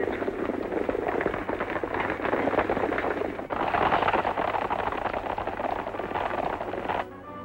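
A group of horses galloping hard on a dirt road: a dense, loud clatter of hoofbeats over a low steady hum. The hoofbeats break off abruptly about seven seconds in, and music comes in.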